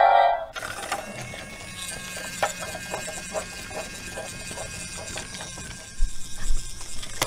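The toy station's spooky sound effect cuts off about half a second in. A small geared motor of a Brio battery toy train then runs with a steady low hum and light clicking, and near the end there are a few plastic knocks and clicks as the track switch lever is flipped by hand.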